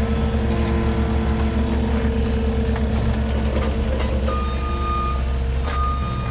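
Cat 257D compact track loader's diesel engine running steadily under load. A reversing alarm starts beeping about four seconds in, with long beeps.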